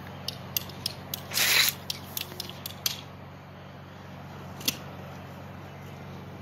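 A run of sharp clicks and knocks from handling PVC pipe and tools, with a loud hissing burst lasting about half a second around a second and a half in, and one more click near the end, over a steady low hum.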